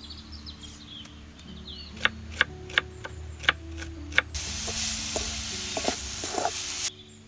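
A kitchen knife chopping winged beans on a wooden board, about six sharp chops, followed by a loud sizzle of frying in a metal pan as a wooden spatula stirs, cutting off suddenly near the end. Soft piano music and birdsong run underneath.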